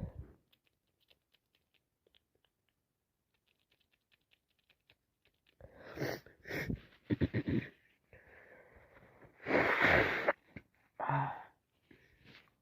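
Congested nose and breathing of a person with a bad head cold: a quick run of wet sniffs and noisy breaths from about six seconds in. The loudest burst, nearly a second long, comes about ten seconds in, and a shorter one follows about a second later.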